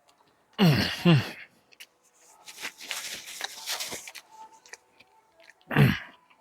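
A man biting and chewing a burger, with crunchy chewing noises in the middle. There are short wordless vocal sounds with a falling pitch: two close together about a second in and one near the end.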